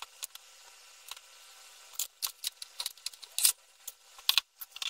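Scattered sharp clicks and taps of small tools and parts being handled on a wooden desk: wires, an XT60 connector and a utility knife picked up and set down. The loudest clicks come about three and a half seconds in and just past four seconds.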